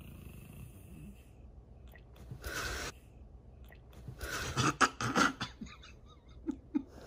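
A sleeping man breathing heavily with a snore. About four seconds in comes a quick cluster of louder snorts and breathy puffs, then two small sounds near the end.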